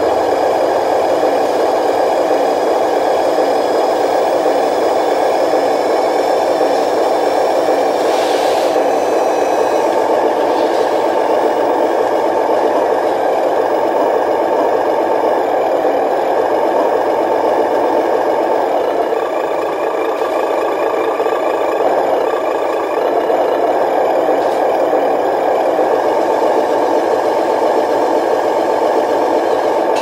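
Radio-controlled 12-wheel dump truck running with a steady mechanical whir while its hydraulic ram tips the gravel-loaded bed. A short rushing noise comes about eight seconds in.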